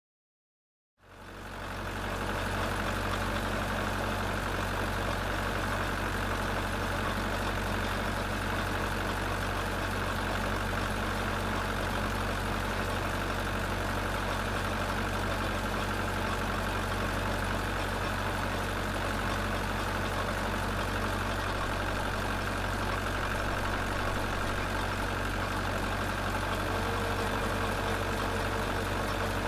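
Tow truck engine idling steadily. It comes in about a second in, and a faint steady whine joins near the end.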